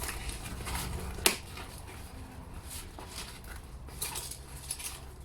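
A mail parcel being handled and opened by hand: irregular rustling and scraping of the packaging, with one sharp knock a little over a second in.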